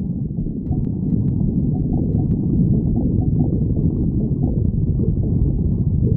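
A woman's stomach growling: a low, unbroken growl with a few short, faint rising squeaks over it.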